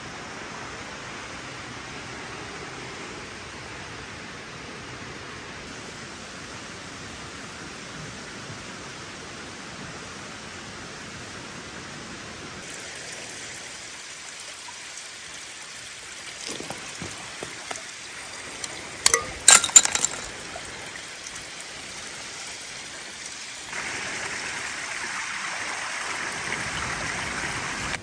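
Steady rush of running water, then a quieter trickle broken by a quick cluster of sharp clinks about two-thirds of the way in, then a louder steady hiss near the end.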